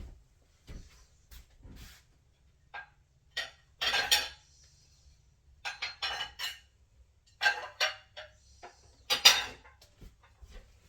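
Dinner plates clattering and clinking against each other and the counter as they are taken out and set down, in a series of sharp knocks. The loudest comes about nine seconds in.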